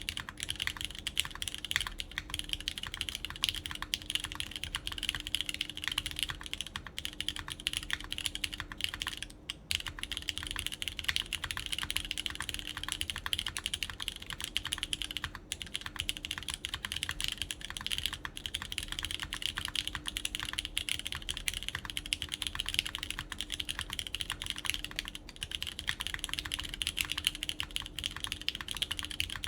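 Continuous fast typing on a QK Neo80 Cu custom mechanical keyboard: lubed Cherry MX Orange tactile switches with GMK Carbon keycaps on a PEI plate in poron gasket mount. The keystrokes make dense clacks with a few brief pauses.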